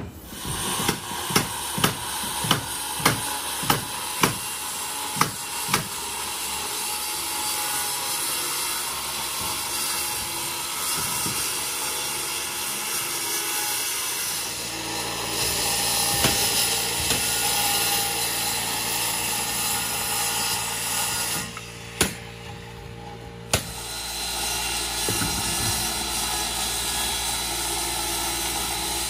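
Pneumatic nail gun fastening plywood roof sheathing, about eight shots at a steady pace over the first six seconds, then a circular saw cutting through the plywood with a steady running noise. The saw pauses briefly about three-quarters of the way in, with two more sharp shots.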